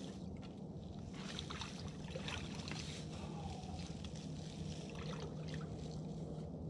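Water lapping and sloshing softly against a small grass-camouflaged boat as a person shifts his weight beside and in it, with scattered rustles of clothing and dry grass.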